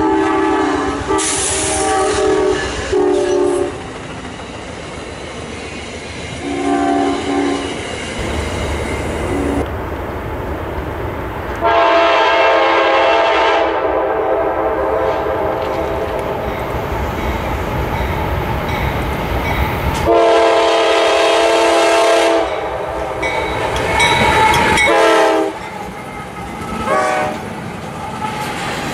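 Locomotive air horn sounding a series of blasts, a chord of several notes at once: a few short blasts at first, then long held blasts about midway and a couple of short ones near the end, over the rumble and clickety-clack of a passing train.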